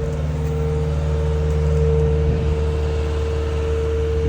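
Heavy equipment engines, a dump truck and a skid steer, running steadily under load, with a constant drone and a steady high whine; the sound swells slightly about halfway through.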